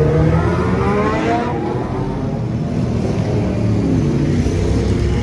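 Ducati 998 RS superbike's L-twin engine running with a loud, uneven low rumble. Over the first second and a half an engine note rises in pitch, then drops back into the rumble.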